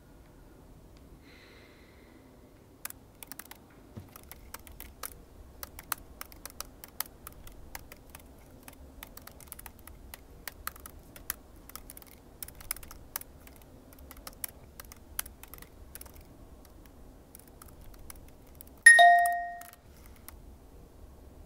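Fingers typing on a laptop keyboard: irregular key clicks for about fifteen seconds. Near the end a single loud bell-like chime rings out and fades within about a second.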